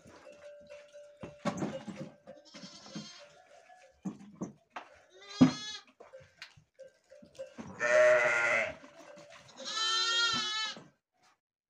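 Sheep bleating: a short call about five and a half seconds in, then two longer, wavering bleats in the second half. Fainter rustling and knocks come before them.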